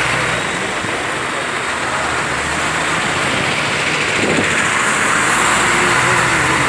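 Road traffic noise: vehicle engines running close by, a steady, even din.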